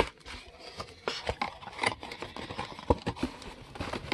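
A trading-card hobby box and its contents being handled: irregular rustling and crinkling of cardboard and paper, with scattered sharp taps and clicks, the loudest right at the start and about three seconds in.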